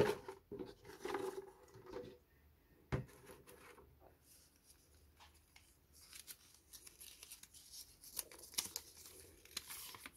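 Faint, intermittent rustling of a folded paper slip being pulled from a clear plastic bottle and unfolded by hand, with the plastic crinkling as it is handled. One sharper tap about three seconds in.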